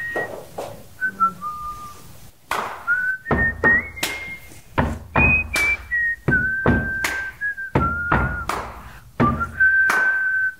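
Outro music: a whistled melody moving in steps, over sharp percussion hits, with a bass beat coming in about three seconds in.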